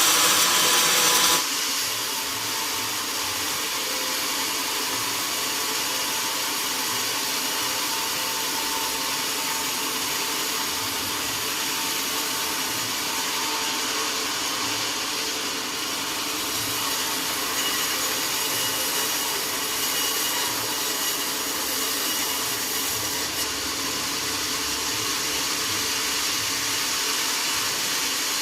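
Sawmill saw cutting oak, the louder cutting sound stopping abruptly about a second in, then the machine running on with a steady whirring noise.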